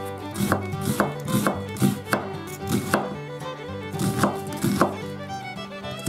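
Kitchen knife slicing an onion thinly on a wooden cutting board: crisp cuts, each ending in a knock of the blade on the board, about two a second. Light background music runs underneath.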